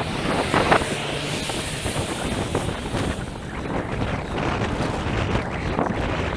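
Wind buffeting the microphone: a steady rushing with a few brief louder gusts.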